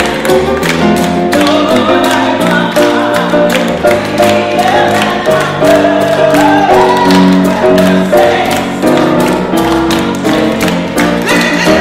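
A group singing a gospel song together, several voices holding notes at once, over a steady beat about twice a second.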